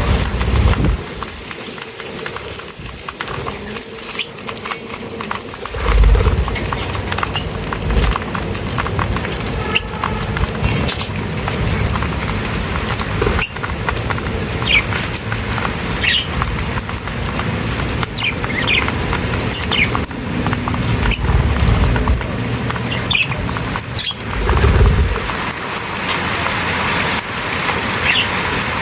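Small birds chirping in short, scattered calls over a steady low rumbling background noise.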